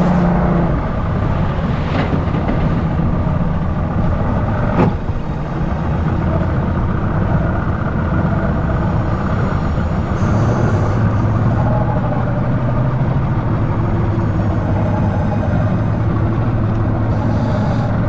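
Boat engine running steadily with the boat underway, with two brief knocks about two and five seconds in.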